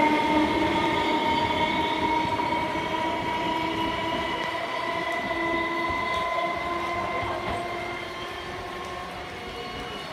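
Electric local train (EMU) moving away down the line, a steady whine over a rumble that falls slightly in pitch and fades steadily as it recedes.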